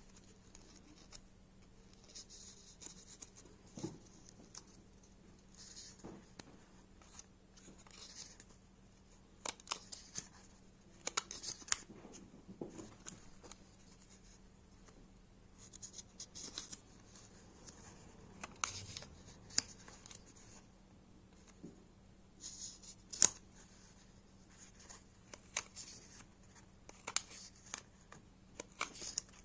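Pages of a small paper sketchbook being turned and handled by fingers: scattered short paper rustles, clicks and taps, with a faint steady hum beneath.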